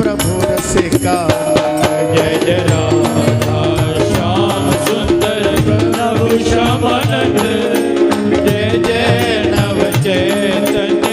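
Indian devotional music: hand drums and small jingling percussion keep a steady beat under a held melodic line.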